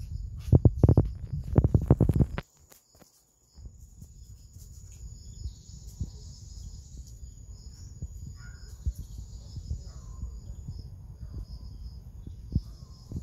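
Insects chirping steadily in a high, even band over a low rumble of microphone noise. In the first two seconds a louder burst of knocks and rustling, then a brief drop-out.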